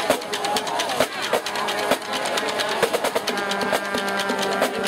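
Marching drumline of snare drums, tenor drums and bass drums playing a dense stream of hits, over crowd chatter.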